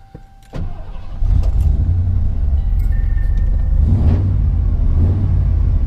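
Ford F-150's 5.0 V8 starting: a short crank about half a second in, catching within a second and settling into a steady, deep idle through Cherry Bomb mufflers, with a brief swell in revs around four seconds in.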